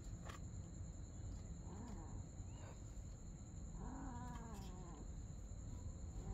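Domestic cats meowing: a couple of short mews about two seconds in, then a longer, louder meow around four seconds in.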